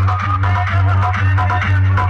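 Loud electronic dance music played through a large DJ sound system, with a heavy steady bass and a kick drum about four times a second.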